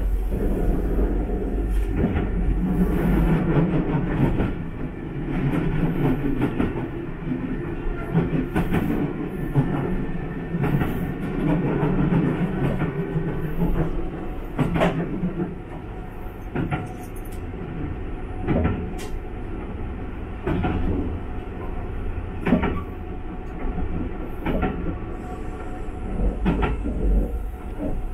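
Kintetsu 21000-series Urban Liner electric train running, heard from inside the driver's cab: a steady rumble with the wheels clicking over the track every second or two.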